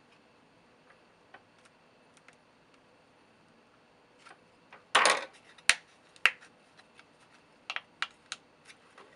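Thin aluminium soda-can wall being handled and creased. It is faint at first, then crinkles loudly once about five seconds in, followed by several sharp clicks as the metal is dented.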